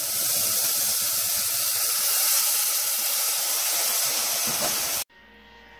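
Sliced mushrooms and freshly added canned diced tomatoes sizzling in hot sesame oil in a metal pot: a steady hiss that cuts off abruptly about five seconds in, leaving a faint steady hum.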